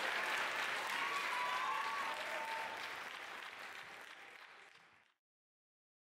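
Audience applauding, with a few voices calling out over it, fading down and then cutting off abruptly to silence about five seconds in.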